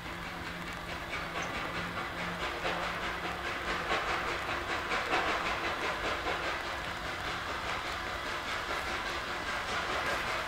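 Gresley A3 three-cylinder steam locomotive Flying Scotsman running with its train: a quick, even exhaust beat over steady steam hiss, growing louder over the first four seconds or so and then holding.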